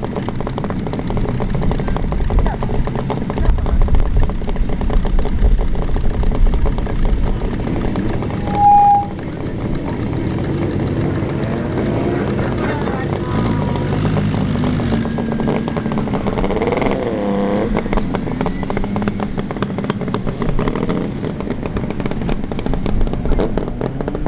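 Old Japanese motorcycles riding slowly past, their engines running and revving with a steady exhaust rumble. There is a short, loud beep about nine seconds in.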